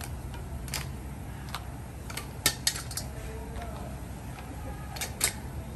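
Plastic tongs and pieces of cooked king crab shell clicking and tapping against a ceramic plate and a metal colander, a handful of sharp separate clacks, the loudest a pair about two and a half seconds in, over a low steady hum.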